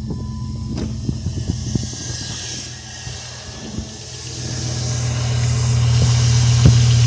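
2001 Jeep Grand Cherokee's 4.7-litre PowerTech V8 running cold with a low knock, which the owner says appears only when the engine is cold and goes away once it warms up, and which he suspects may be rod knock. A string of sharp knocks stands out in the first couple of seconds, and the engine grows steadily louder through the second half.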